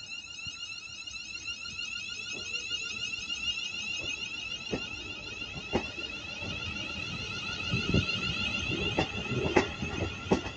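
A steady electronic alarm tone, several fixed pitches with a fast warble, sounds throughout. A London Northwestern Railway electric multiple unit pulls past under it, its wheels clicking over rail joints, with a low rumble building in the second half.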